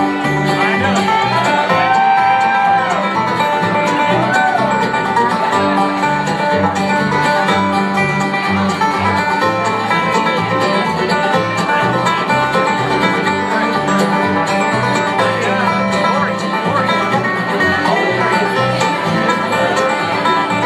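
Live bluegrass band playing an instrumental passage on banjo, fiddle, acoustic guitar and upright bass, with sliding notes in the first few seconds.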